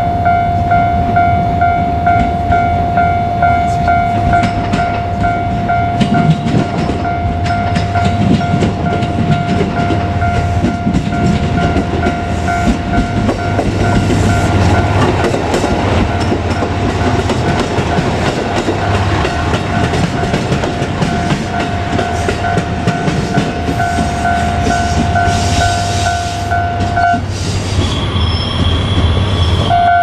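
JR Kyushu KiHa 200 diesel railcar passing over a level crossing, its engine rumbling and its wheels clacking over the rail joints, while the crossing's warning bell rings steadily. The bell stops a few seconds before the end, a higher tone sounds briefly, and the bell starts again just at the end.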